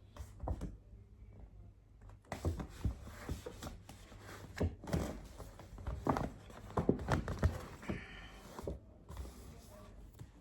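Handling of a cardboard product box and its paperwork: a string of irregular knocks, taps and light thunks, with a short rustling scrape a little before the end.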